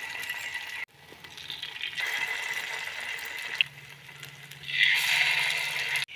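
Batter-coated balls sizzling in hot oil in a kuzhi paniyaram pan, the hiss swelling as more go in, with a single click partway through.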